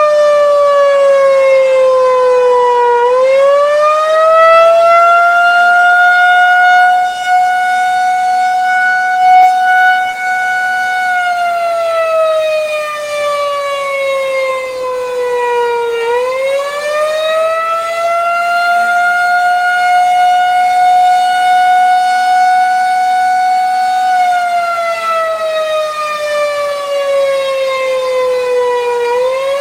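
Federal 2001-130 tornado siren on 48-volt DC sounding the attack signal: one wailing tone that winds up and holds high for about eight seconds, then winds down over about five seconds, repeating.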